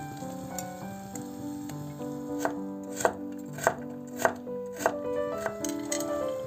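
Kitchen knife chopping carrot on a wooden cutting board: a run of about five crisp strokes, a little over half a second apart, in the middle stretch. Background piano music plays throughout.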